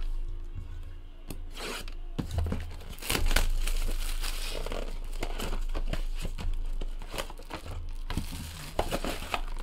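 Clear plastic shrink wrap being torn and crumpled off a cardboard trading-card box, a run of sharp crinkles and rustles, busiest in the middle.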